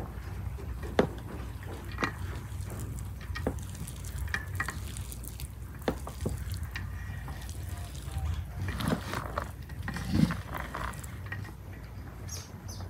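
Hands mixing cooked rice with lumps of butter in a large metal pan: soft rustling and squishing, with a few light clicks against the pan, over a steady low rumble.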